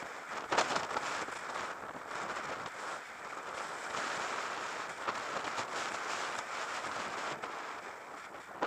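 Wind rushing over the microphone of a camera on a moving road bike, with road noise underneath and a sharp knock about half a second in.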